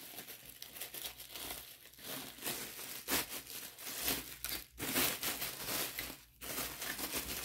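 Plastic bubble wrap crinkling and rustling as it is handled and pulled off a steel phone-mount arm. The crackling is irregular, with a few louder crackles in the middle.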